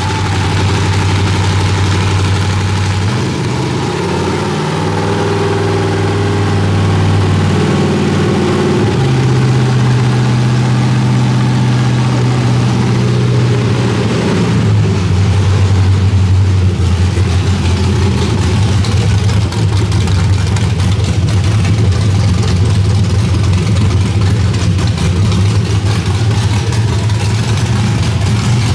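LS-series V8 with a no-name Temu camshaft, running on an engine run stand through open long-tube headers on one of its first runs. Its pitch steps up and down several times in the first half as the revs change. It then settles into a steady, choppy idle that sounds cammed.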